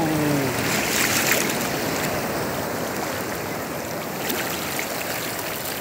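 Seawater sloshing and lapping close to the microphone around a swimmer in small waves, a steady rushing wash.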